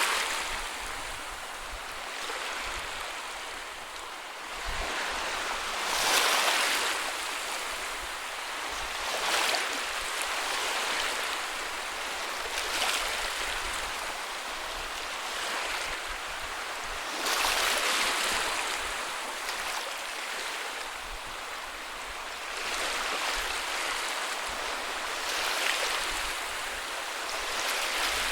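Ocean waves breaking on a beach: a steady wash of surf that swells as each wave breaks, every three to five seconds.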